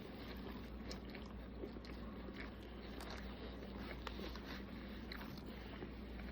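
Someone chewing food close to the microphone: faint, scattered wet mouth clicks over a steady low hum.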